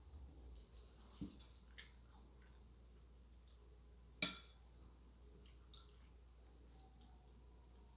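Quiet sounds of eating with the hands: food squished between the fingers and chewed, with a few soft clicks and one sharp clink about four seconds in.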